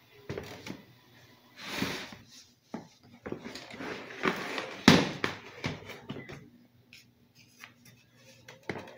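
Knocks, scrapes and rustles of a Samsung HT-330K home theatre unit's casing being handled and turned around on a table, with one sharper knock about five seconds in.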